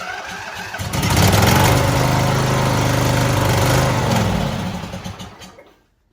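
Husqvarna GTH 2654 riding mower's twin-cylinder engine turning over, catching about a second in on carb cleaner sprayed into the intake, and running for about three seconds before it slows and dies. It stalls once the carb cleaner is burned off because it is not getting fuel.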